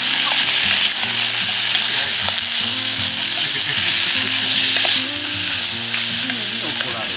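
Food frying and sizzling in a hot pan, with a steady crackling hiss. Quiet background music with a slow melody runs underneath.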